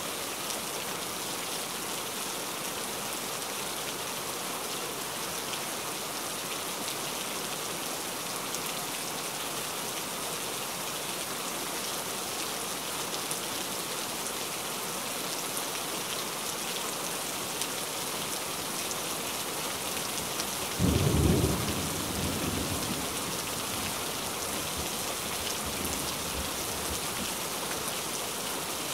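Steady rain falling. About two-thirds of the way through comes a single loud clap of thunder, followed by a rumble that fades over a few seconds.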